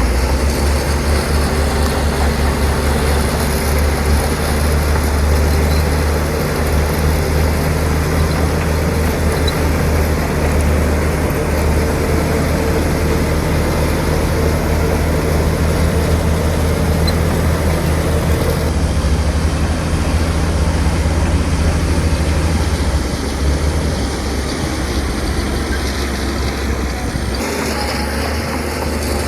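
Heavy diesel earthmoving machinery running steadily with a deep engine rumble. The engine tone shifts a couple of times partway through.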